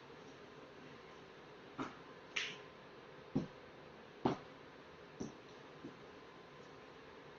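A handful of sharp knocks and taps, roughly one a second and irregular, from a person moving about on a hard floor, over a faint steady hum.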